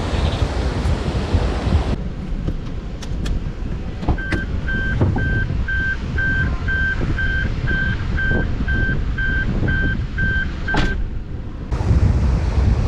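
A car's warning chime beeping evenly about twice a second for several seconds, as it does when a door is left open, with a couple of clicks at the start and end of the beeping. Wind buffets the microphone before and after.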